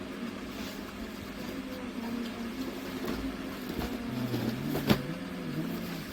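A vehicle engine running steadily, with a sharp click about five seconds in.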